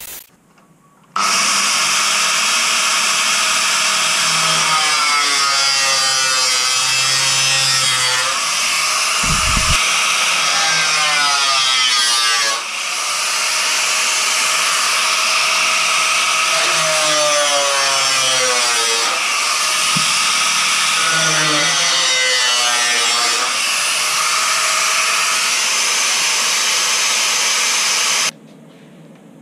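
Power tool cutting out rusted steel body panel, running loud and steady with its pitch sliding up and down as the load changes. It starts about a second in, dips briefly midway and cuts off suddenly near the end.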